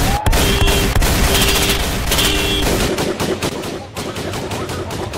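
Heavy gunfire sound effects: many shots fired in quick succession, with rapid automatic-fire strokes continuing after about three seconds in. A repeating electronic tone pulses under the shooting and stops about two and a half seconds in.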